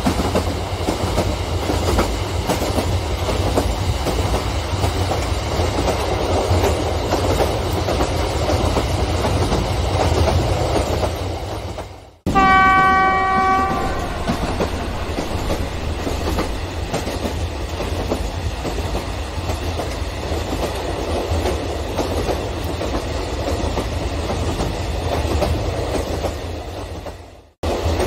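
Large-scale model train, a DF4D locomotive hauling a long rake of passenger cars, running on its track: a steady rumble and clatter of wheels over the rails. About twelve seconds in the sound drops out briefly and a single horn blast of about a second and a half sounds.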